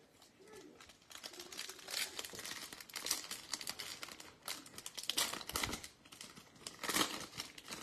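Foil wrapper of a Topps baseball card pack crinkling and tearing as it is handled and ripped open by hand, in uneven bursts that start about a second in.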